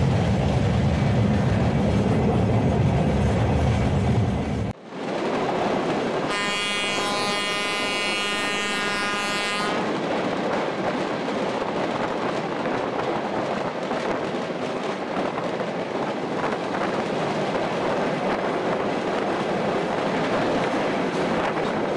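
A train running with a heavy low rumble, then a sudden break in the sound. About six seconds in, the train's horn sounds once for about three seconds, and after it the train rolls on with steady wheel noise on the rails.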